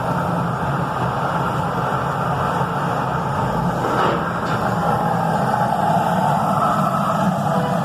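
Forklift engine running steadily, with a short knock about four seconds in.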